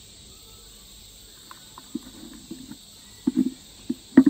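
A clear plastic container and its lid being handled: a few light clicks and knocks, the sharpest near the end. Underneath is a steady high drone of insects.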